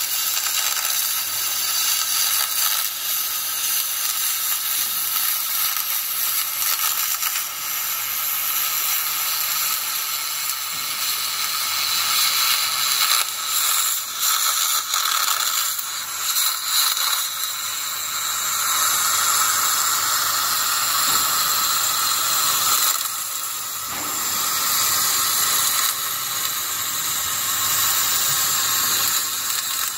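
Electric welding arc burning steadily as a dense hiss while a weld is laid along a seam.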